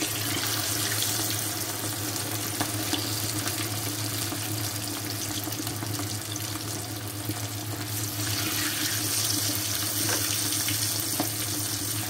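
Cornflour-coated chicken pieces deep-frying in hot oil in a karahi: a steady sizzle with small crackles, swelling brighter about two-thirds of the way through.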